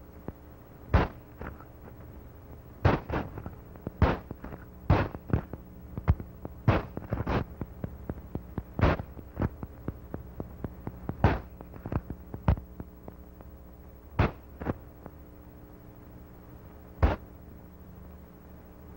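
Irregular sharp knocks and clacks of long-handled digging tools striking gravel and stones as diamond miners work the ground, sometimes single and sometimes several in quick succession, over a steady low hum.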